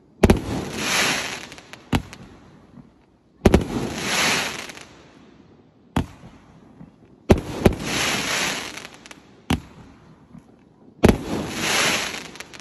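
Jiang Feng Cai Jin 288-shot fireworks cake firing. Four times a sharp bang is followed by about a second and a half of hissing crackle, with a lone sharp bang between each.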